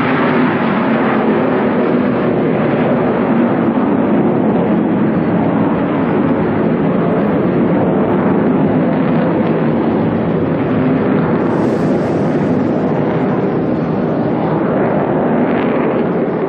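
Aircraft engines at an air show, a loud, steady roar that holds at one level throughout.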